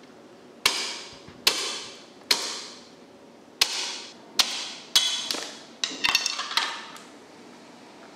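A heavy fish knife striking hard through a large tuna's tail and bone onto a wooden cutting board: about ten sharp chops, each with a short metallic ring, coming quicker in the second half.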